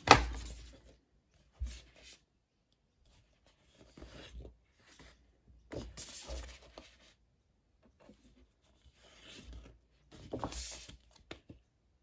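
Large glossy photo pages from a vinyl LP package being handled and turned. A sharp knock of the pages comes right at the start, then short bouts of paper rustling and sliding, with quiet gaps between.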